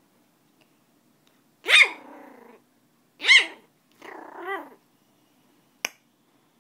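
Poodle puppy barking: a sharp, high yap about a second and a half in that trails into a short rasping growl, a second yap, a growly grumble, and a brief yip near the end.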